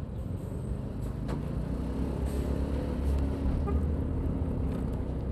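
Road traffic heard from a motorcycle in slow, congested traffic among large trucks: a steady low engine drone.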